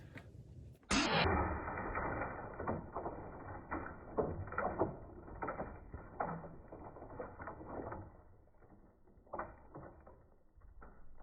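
An airsoft grenade going off about a second in, with a sudden loud burst followed by several seconds of rapid irregular clattering that dies away, and one more short clatter near the end.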